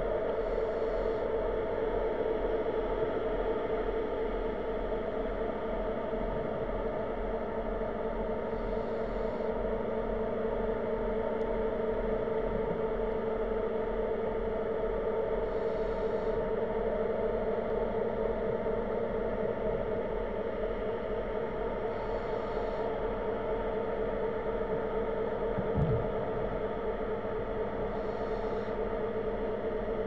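Steady underwater machinery hum, pitched and unchanging, typical of a ship's engine or generator carried through the water. A faint hiss comes back about every six seconds, and there is one soft low knock near the end.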